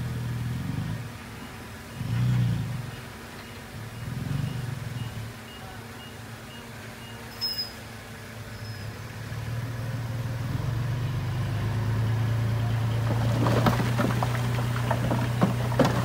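Dump truck diesel engine running, swelling in a few short revs as it backs up, then rising to a louder steady run as the bed tips. Near the end, rocks and dirt clatter as the load slides out. A faint regular beeping sounds through the first half.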